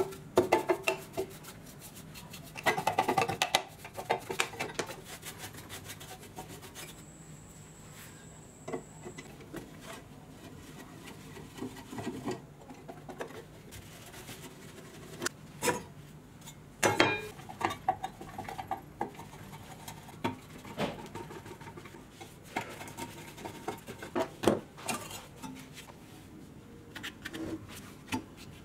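Brushing and rubbing on the dusty casing of an old Kotobuki bench grinder, then scattered clicks, taps and metallic clinks of a screwdriver and loose metal parts as the grinder is taken apart.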